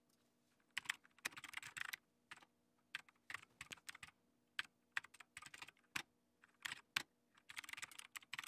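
Typing on a computer keyboard: irregular runs of faint key clicks, starting about a second in, as a terminal command and password are keyed in.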